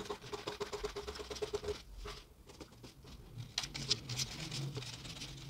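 Scissors cutting through pattern paper: a quick run of fine snipping clicks for the first couple of seconds, then a few sharper, crisp snips about three and a half to four seconds in.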